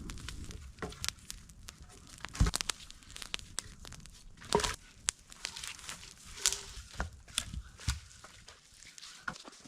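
Wood campfire crackling, with irregular sharp pops, the loudest about two and a half and four and a half seconds in.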